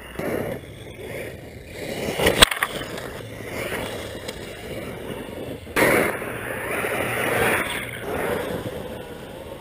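Axial Yeti electric RC truck running over loose dirt and gravel: rough scrabbling of the tires and thrown dirt. A sharp knock about two and a half seconds in, and a sudden louder rush of noise about six seconds in that lasts a couple of seconds.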